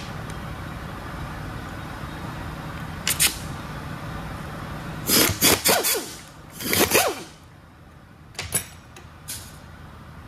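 Handheld power ratchet run in short bursts to spin bolts out of a transmission top plate. A quick double burst comes about three seconds in, then several louder whirring bursts rise and fall in pitch from about five to seven seconds in, over a steady shop hum.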